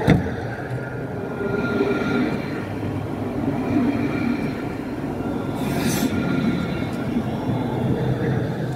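Electric tram running on its rails, a steady rumble with a faint whine. A sharp knock right at the start and a brief hiss about six seconds in.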